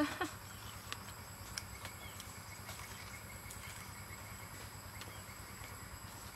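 Chewing of crispy breaded fried chicken: scattered soft crunches and mouth clicks, a few to a second.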